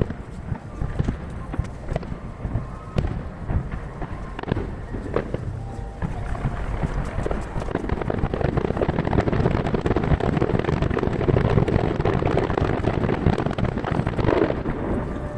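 Aerial fireworks bursting from far off in a fast, dense barrage of pops and bangs over a continuous rumble, played back at three times speed. The barrage thickens and grows louder about halfway through.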